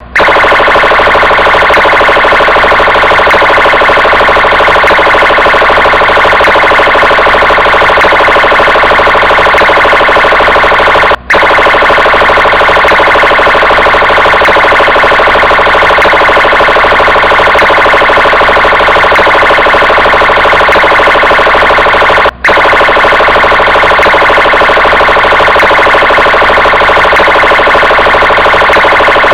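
Police siren sounding continuously and loudly at a steady pitch with a fast flutter, cutting out for an instant twice, about eleven seconds apart.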